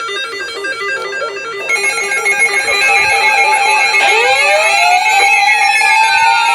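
Several electronic weather-radio alert alarms sounding at once as a warning comes in: rapid, repeating beeping patterns, joined about four seconds in by sweeping siren-like tones that settle onto a steady tone near 1 kHz.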